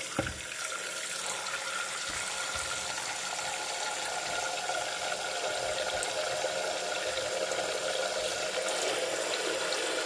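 Thin stream of water from a bathroom sink faucet running steadily into the plastic water tank of a Syvio ultrasonic humidifier, filling it. There is a brief light knock just after the start.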